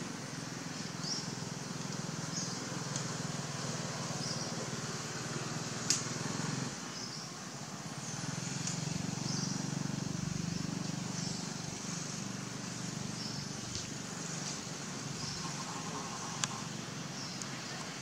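Outdoor ambience: a steady low rumble like a distant engine, swelling for a few seconds midway, under repeated short high chirps. Two sharp clicks stand out, one about six seconds in and one near the end.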